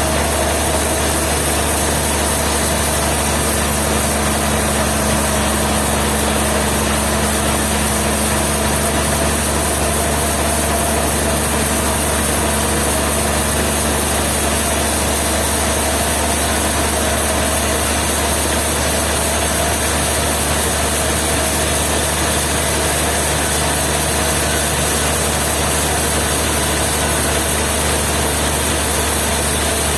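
Sawmill engine running steadily at one even speed, with no change in pitch or load.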